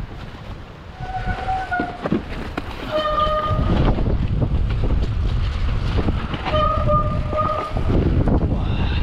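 Wind rushing over the microphone, getting louder about three seconds in, with three short high-pitched squeals or whistles on top, the last one the longest.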